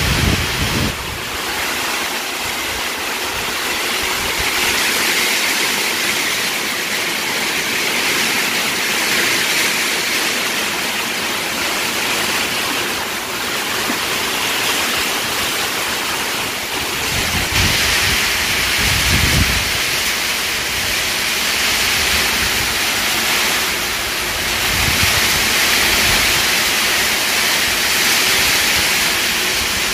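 Heavy tropical downpour in a windstorm: rain pouring down in a dense, steady hiss. Low gusts of wind rumble in at the start and again, more strongly, a little past the middle.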